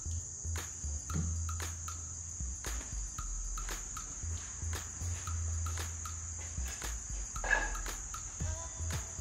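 Steady high-pitched insect drone, like crickets, over a low rumble, with scattered sharp clicks and knocks throughout.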